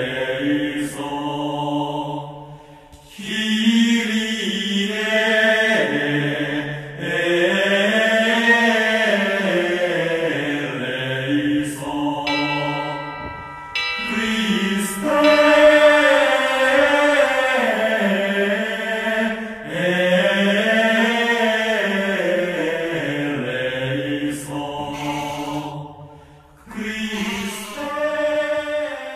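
Chanted vocal music: a single low voice sings slow phrases whose pitch rises and falls, with short pauses between them.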